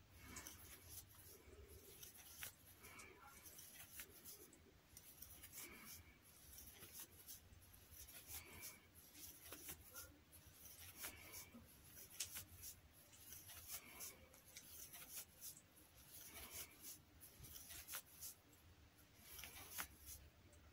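Near silence, with faint scratching and small ticks of a crochet hook working yarn through a row of single crochet stitches.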